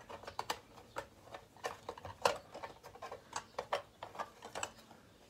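Irregular light clicks and taps of plastic parts as an electric pencil sharpener's housing is handled and worked apart, with one louder click a little past the middle.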